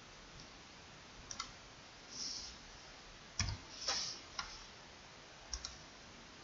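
Faint computer mouse clicks and keystrokes: a handful of separate sharp clicks, a couple of them in quick pairs, with two short soft hisses between them.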